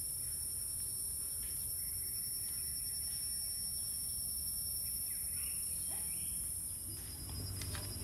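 A chorus of insects in the trees: a steady, high-pitched drone with a thin, unwavering whine under it. A few faint clicks come near the end.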